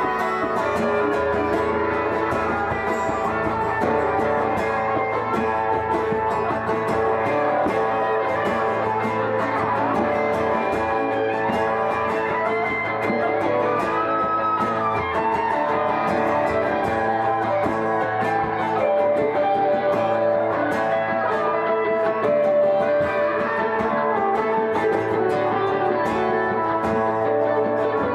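Several guitars, electric ones among them, playing together live in a small band jam, with a steady low line underneath.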